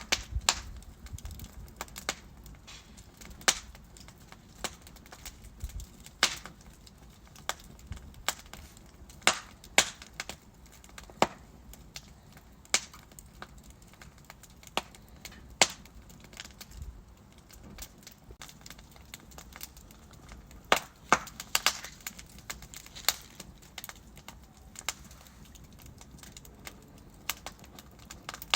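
Logs burning in a fireplace, crackling with irregular sharp pops and a quick run of them about three quarters of the way through, over a faint low rumble of the flames.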